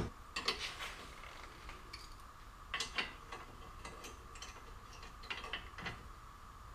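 Faint scattered clicks and light knocks from handling steel tubing and 2x6 boards on a homemade garbage-can platform, in three small bursts, over a faint steady hum.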